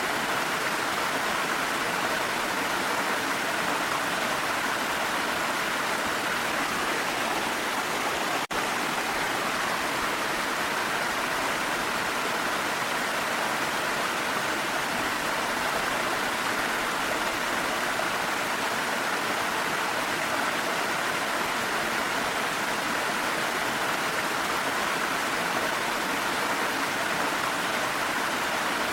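Waterfall water rushing steadily, an even roar of falling water, with a split-second dropout about eight and a half seconds in.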